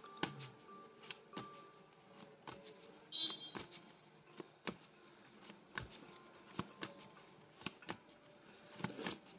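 Tarot cards being shuffled and handled: a run of sharp, irregular clicks and snaps of card on card.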